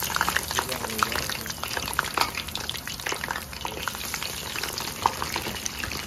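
Crinkle-cut potato fries deep-frying in hot oil in a stainless steel saucepan: a dense, continuous crackling sizzle full of sharp pops, as raw fries are dropped in by hand.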